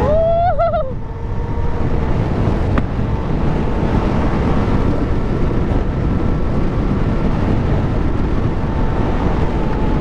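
Wind buffeting the helmet microphone while riding an electric dirt bike at road speed, with the electric motor's faint steady whine underneath.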